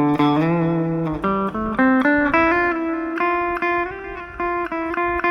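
Electric guitar (Epiphone Les Paul 100) played through an Aroma TG-08 mini amplifier on its clean setting: a melodic line of single picked notes, one after another, with a string bend in the first second.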